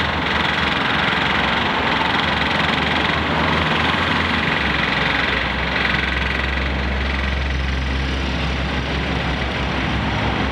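Motor vehicle engine running steadily amid street traffic; a deeper engine rumble comes in about halfway through.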